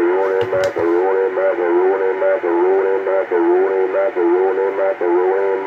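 A warbling tone received over a CB radio on AM channel 28 and heard through the radio's speaker. It plays without a break, its pitch stepping up and down between a few levels a couple of times a second.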